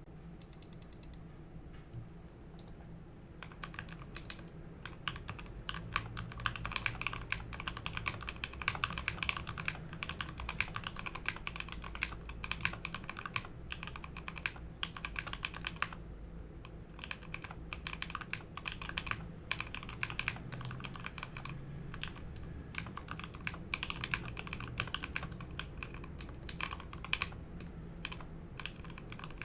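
Modded Royal Kludge RK61 mechanical keyboard being typed on: a few scattered keystrokes at first, then fast continuous typing from a few seconds in, with a brief lull about halfway through.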